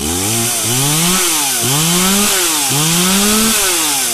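Stihl MS 180 two-stroke chainsaw engine, just started after a carburetor clean, being revved in four quick throttle blips, its pitch climbing and dropping back each time.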